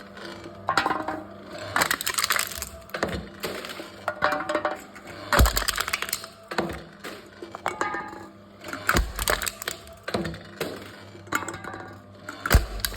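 Aluminium drink cans being crushed by a machine: repeated crinkling, crackling crunches of thin metal folding, with three heavy thumps spaced a few seconds apart.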